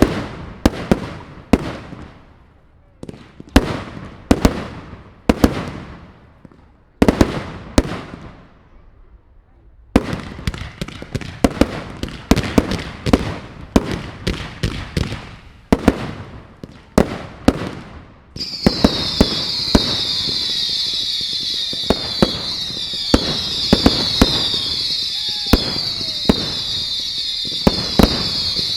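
Fireworks display: aerial shells bursting one after another with sharp bangs and fading rumbles, then coming much faster about a third of the way in. About two-thirds through, a continuous shrill layer of many short falling whistles starts and runs on under the bangs.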